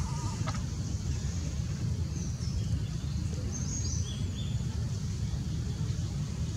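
Steady low outdoor background rumble. A few faint, high bird chirps come between about two and four seconds in, and a short wavering squeak sounds right at the start.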